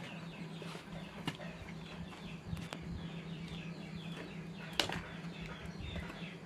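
Birds chirping repeatedly in short falling notes over a steady low hum, with a few sharp knocks, the loudest near the end.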